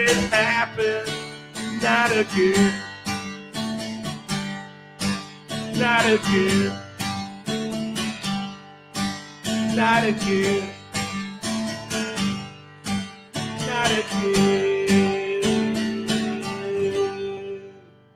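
Acoustic guitar strummed with a man singing over it, ending on a long held sung note about three-quarters of the way through, then the guitar fades out just before the end.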